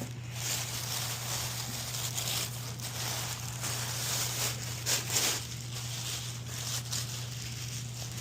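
A package being opened by hand: repeated rustling, crinkling and tearing of the wrapping, loudest about five seconds in.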